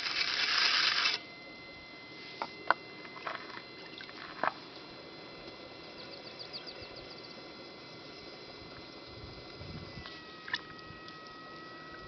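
Potter's wheel running with a steady high whine that drops slightly in pitch about ten seconds in, as wet hands work clay on the wheel head with a few small wet clicks and slaps. A brief rush of noise fills the first second.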